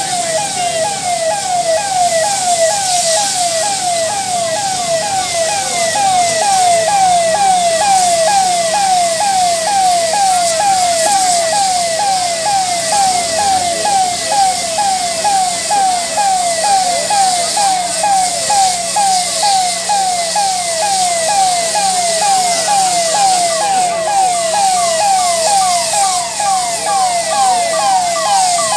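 Emergency vehicle siren sounding a fast repeating yelp, each note sliding down in pitch, about two a second. A steady low hum comes in about seven seconds in, under a constant hiss.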